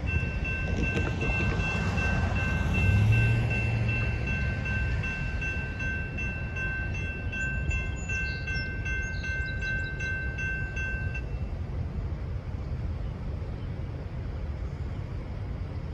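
A bell ringing repeatedly for about eleven seconds, then stopping, over a low steady rumble.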